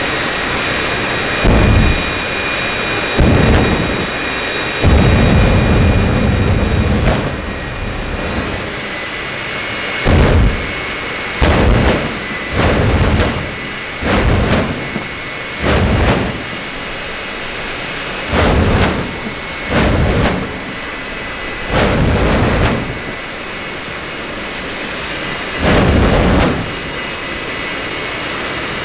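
General Electric J79 turbojet in a jet truck running stationary with a steady roar and high whine, broken by about a dozen loud, irregular bursts of flame from its afterburner and exhaust, each lasting under a second to about two seconds.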